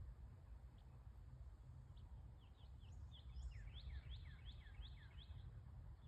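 Faint songbird song: a run of six or seven quick notes, each falling in pitch, starts about three seconds in, after a few scattered chirps, over a low steady rumble.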